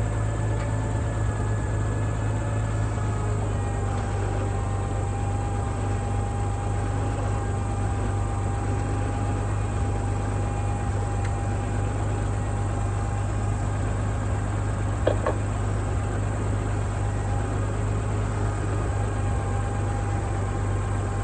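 Tractor engine idling steadily, with a faint steady whine over the drone and a single click about fifteen seconds in.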